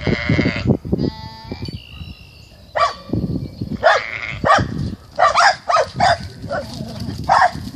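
Lambs bleating: a wavering call at the start and a quavering one about a second in, then a string of short, high bleats.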